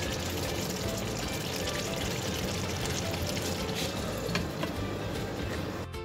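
A pot of potato-and-yogurt curry gravy bubbling and sizzling at a steady simmer, with light background music. About four seconds in, a glass lid is lowered onto the pot. Near the end the music comes through clearly.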